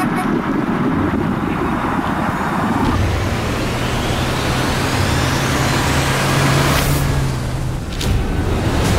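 Outboard motor of a small motorboat running under way, with water and air rushing past at first, then a steady low engine hum. A thin rising whistle climbs over it for a few seconds and stops abruptly about seven seconds in.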